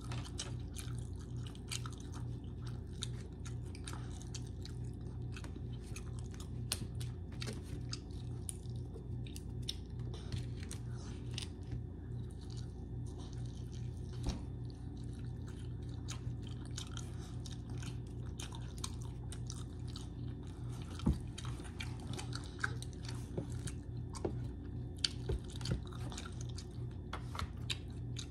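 A toddler chewing a sandwich close to the microphone: irregular small wet clicks and smacks of the mouth, over a steady low hum.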